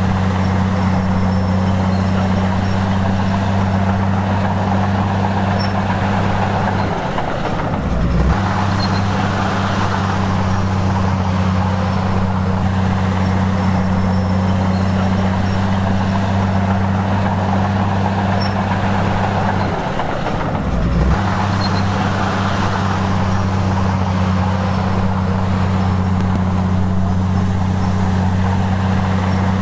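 Komatsu bulldozer's diesel engine running hard and steady. Its note sags briefly and then picks back up twice, about a quarter and two-thirds of the way through.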